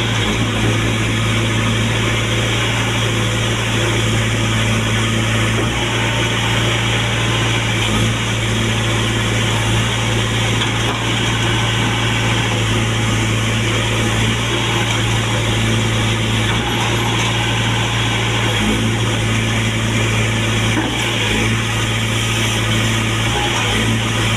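Case 770 NX backhoe loader's diesel engine running steadily at constant speed, a low even drone.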